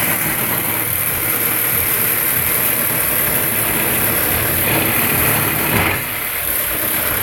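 Reciprocating saw (Sawzall) running steadily as it cuts through a metal exhaust pipe, easing off about six seconds in.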